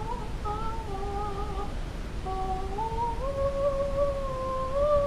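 A girl humming a slow tune of long held notes. There is a short break in the tune, and after it the notes step upward in pitch.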